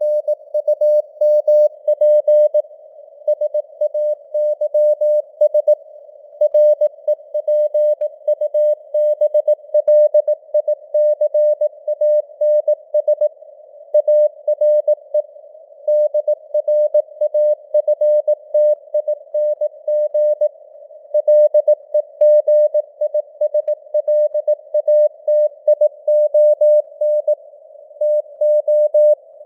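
Morse code (CW) keyed at 18 words per minute: a single mid-pitched beeping tone in dots and dashes, heard through a narrow band of simulated radio hiss, with the signal strength fading up and down (QSB).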